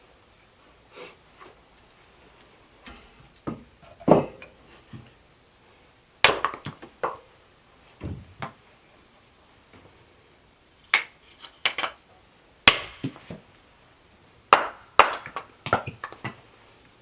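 Scattered knocks and clunks of 2x4 lumber being handled and worked, coming singly and in short clusters of a few quick strikes, with quiet gaps between.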